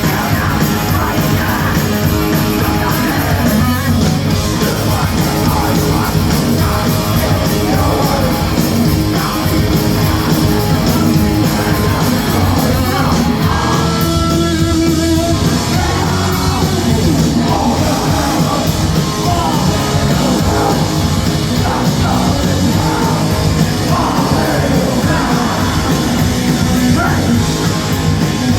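Live heavy metal band playing loud and fast, with distorted guitars, drums and yelled vocals, and a held guitar note about halfway through.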